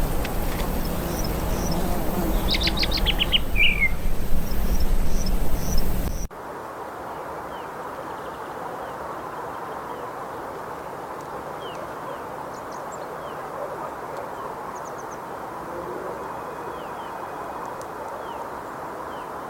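Wild birds calling: short sharp chirps and a quick run of high notes over steady low background noise. About six seconds in the background drops suddenly, leaving fainter, scattered down-slurred chirps over a steady hiss.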